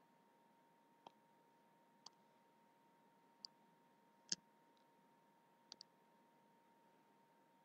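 Computer mouse clicking: single clicks roughly a second apart, the loudest a little past the middle, and a quick double click near the end, over a faint steady tone.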